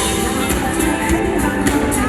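Live band music played loud through a PA system, with a steady beat and sustained instrument notes between sung lines.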